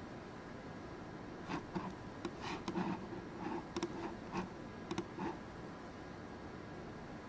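A dozen or so light computer keyboard and mouse clicks, bunched in the middle, over faint steady room hum.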